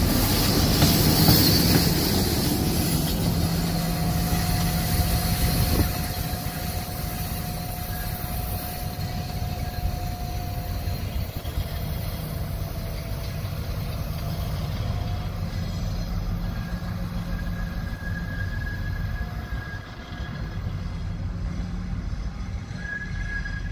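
M62 diesel locomotive's two-stroke V12 diesel engine running as the light engine rolls past close by and draws away. It is loud at first and drops after about six seconds to a steadier, quieter running sound.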